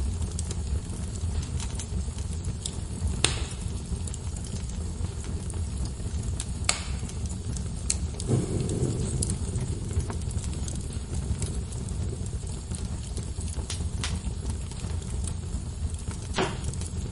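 Wood fire burning in a fireplace: a steady low rumble with scattered sharp crackles and pops, the loudest about three seconds in, near seven seconds and near the end.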